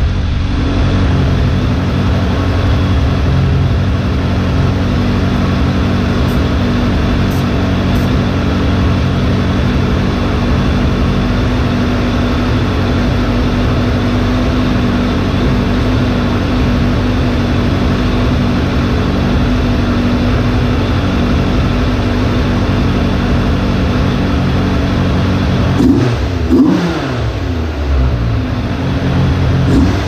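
Suzuki GSF600 Bandit's warm inline-four engine idling steadily during a vacuum leak test on its carburettor intake boots. Near the end the engine speed rises and falls briefly, twice.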